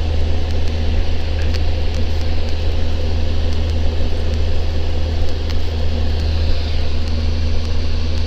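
Steady drone of a Socata TB10 Tobago's four-cylinder piston engine and propeller, heard from inside the cabin in cruise flight. A constant low hum sits under an even rush of air noise.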